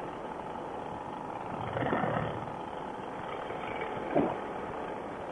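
Steady drone of a paramotor's engine and propeller in flight, with the airflow, heard muffled and dull. Two brief louder bursts stand out, about two seconds in and again just after four seconds.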